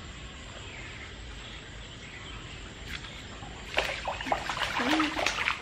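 A hooked fish splashing and thrashing at a pond's surface on the line: a quick run of splashes begins about two-thirds of the way through and lasts a couple of seconds, over a steady outdoor background.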